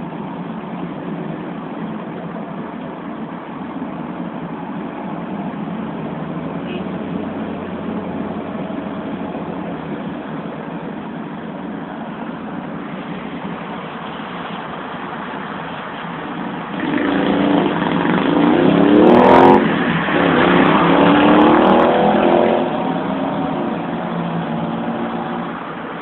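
Steady motor-vehicle noise. About two-thirds of the way through, a vehicle engine grows louder for about five seconds, its pitch shifting up and down, with one sharp click in the middle, then it drops back.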